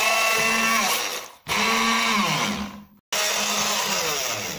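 Hand-held immersion blender running in a pot, puréeing stewed zucchini with soft cheese. Its motor whine comes in three short runs, and the pitch sinks as each one winds down.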